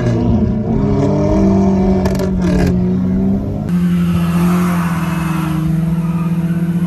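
Car engine heard from inside the cabin during hard driving, its pitch rising and falling. A little over halfway through it cuts to another car's engine holding a steady drone, with a hiss above it.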